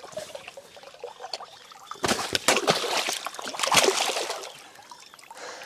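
Shallow lake water splashing as a large common carp is released by hand. Light trickling and dripping at first, then heavy splashing about two seconds in as the fish kicks away, dying down near the end.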